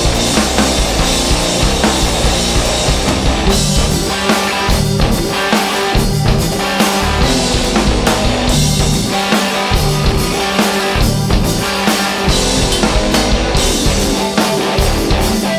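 Post-hardcore band playing loud, full-on rock: electric guitar over a driving drum kit.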